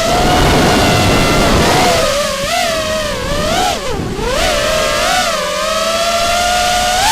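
FPV racing quadcopter's 2300 kV brushless motors and three-blade props whining, the pitch rising and falling with the throttle and dipping sharply about four seconds in. A low rushing noise runs under it for the first two seconds.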